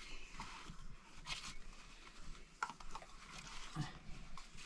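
Faint small clicks and soft rustles of dishes being handled, as a cup is dipped into a plastic tub of yogurt and set back down.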